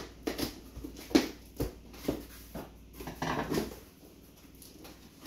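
A series of sharp knocks and taps with a short stretch of rustling and scraping about three seconds in: a parcel being opened and its contents handled.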